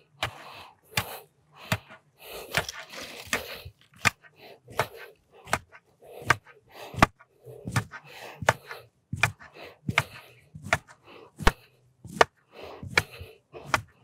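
Backfill soil being rammed by hand with a long wooden tamping pole beside a gabion basket: a steady run of sharp knocks, about one every three-quarters of a second.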